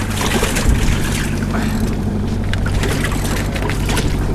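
Boat motor running steadily, a low even hum with wind and water noise over it.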